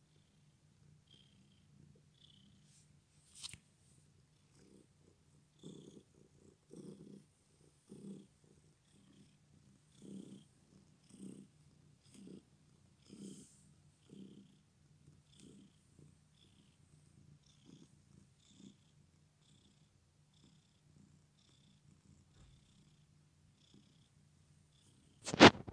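A ginger long-haired cat with an injured, bandaged front leg purring steadily, the purr swelling about once a second with its breathing. A sharp knock, the loudest sound, comes near the end.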